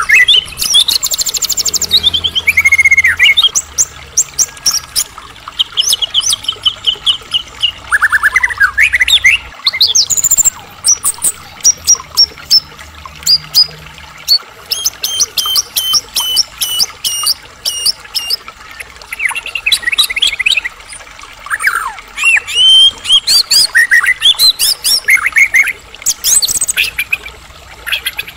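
White-rumped shama singing a long, varied song: rapid runs of short repeated notes, whistled rising and falling glides and trills, in phrases broken by brief pauses.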